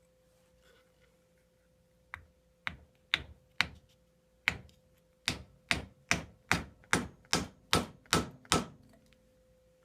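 About fourteen sharp mallet blows on a chisel, chopping waste wood off a dowel. They start about two seconds in, irregular at first, then fall into a steady pace of roughly two to three blows a second.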